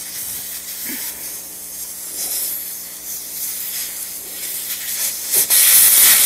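Air hissing out of a car tyre through its valve stem as the valve core is unscrewed: a faint hiss at first, turning about five seconds in to a loud, sudden rush of escaping air as the tyre deflates.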